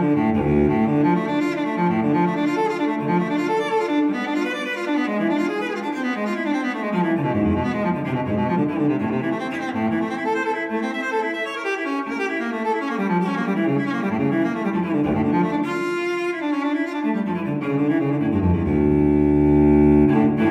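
Background music with sustained, slowly changing notes from low bowed strings.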